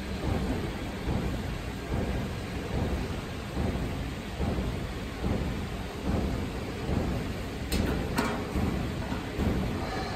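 Low rumbling thuds about once a second as a screwdriver is worked against a stainless steel tube frame, with two sharp clicks near the end.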